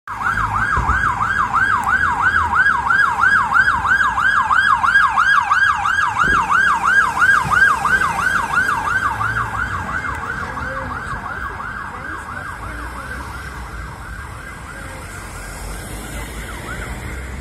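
Police car siren on a fast yelp, a rising-and-falling wail of about three sweeps a second. It is loud at first, then fades away over the second half as the car drives off.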